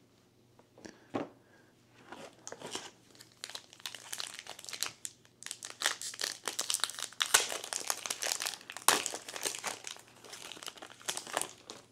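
Foil booster-pack wrapper of One Piece trading cards being crinkled and torn open by hand, a dense, uneven crackling of foil. Near the end the cards are slid out of the torn wrapper.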